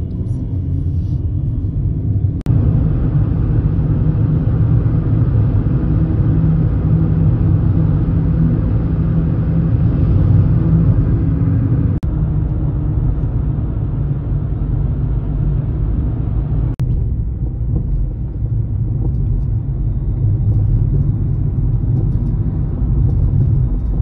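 Steady low rumble of a moving car's road and engine noise, heard from inside the cabin. The noise changes abruptly three times, about 2.5, 12 and 17 seconds in.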